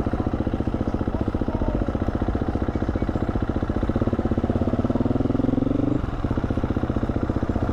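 KTM 350 single-cylinder four-stroke dirt bike engine running under way, heard close up with a steady, rapid firing beat. The revs climb from about four seconds in, drop briefly about six seconds in, then pick up again.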